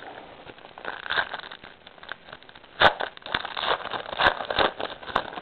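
Foil trading-card pack wrappers crinkling as they are handled, an irregular crackle with a few sharp clicks.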